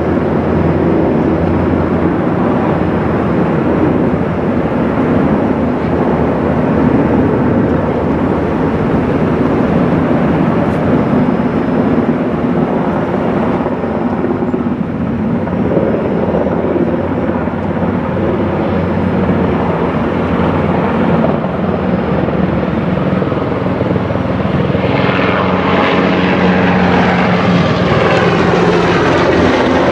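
Low-flying helicopters: loud, steady rotor and engine noise with a fast flutter. Near the end, higher sweeping tones come in.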